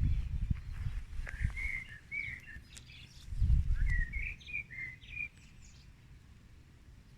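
Wild songbirds singing: a run of short, quick chirping phrases in the middle of the stretch. Two bursts of low rumbling noise, one at the start and one about three and a half seconds in, are louder than the birdsong.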